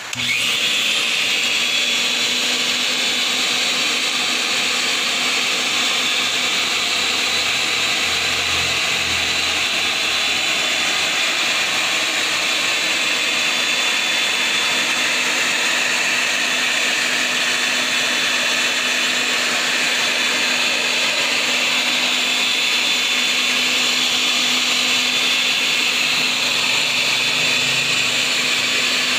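Homemade thickness planer switched on and running steadily: its electric motor driving the cutterhead by belt and the feed rollers by chain, a loud even whir with a steady hum underneath. It starts suddenly at the very beginning.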